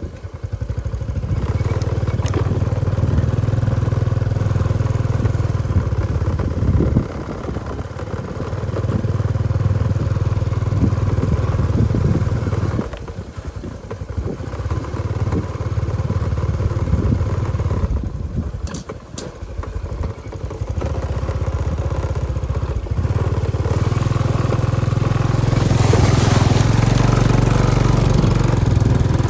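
Motorbike engine running under way, opening up and easing off several times as the throttle is worked. Near the end it grows louder, with more rushing noise over it.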